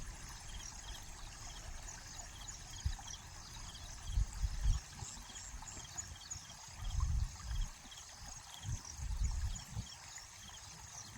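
River water flowing and trickling, with faint high chirps repeating throughout. Dull low rumbles come about four, seven and nine seconds in.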